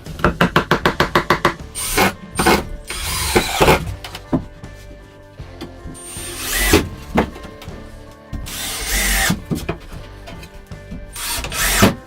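Tool work, probably on wood: a quick run of about ten rapid strokes, then slower separate scraping strokes, with music underneath.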